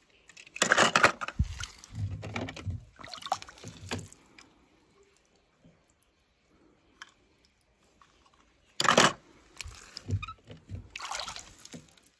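Water sloshing and splashing in a shallow plastic tub as a hand rummages through it, in two spells: one from about half a second to four seconds in, and another from about nine to eleven and a half seconds in.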